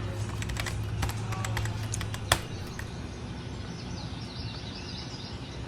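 Wild birds chirping, with a quick series of high chirps near the end. A run of light clicks in the first half and one sharp click about two seconds in, over a low hum that fades after two seconds.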